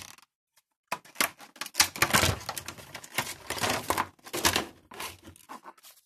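Clear plastic packaging crinkling and rustling in irregular crackles as a power adapter is unpacked from it, starting about a second in.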